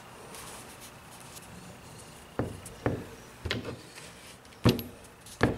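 Light knocks and taps on a wooden workbench, about five in the second half, the last two the sharpest. They come as a craft-foam sheet is pressed flat beside model railway track and steel sockets are set down on it as weights.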